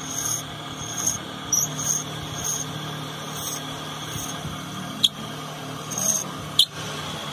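Small electric lathe running steadily while a metal blade scrapes against the spinning lacquered wooden leg, giving short high squeaks at irregular intervals. Two sharp clicks come in the second half.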